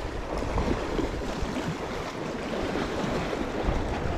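Sea waves washing along the shore, with wind noise on the microphone.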